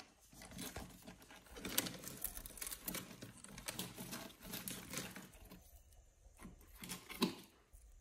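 A thin plastic bird-seed bag crinkling and rustling as it is handled, a dense crackle lasting about five seconds, then a few separate sharp taps near the end.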